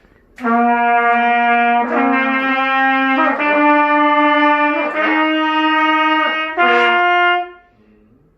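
Trumpet playing five held notes that rise step by step, each lasting about a second and a half, as a slow ascending scale exercise. It stops shortly before the end.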